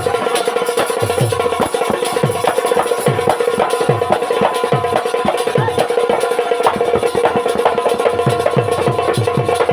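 Instrumental rai folk music: a fast, even run of drum strokes under a steady held melodic note.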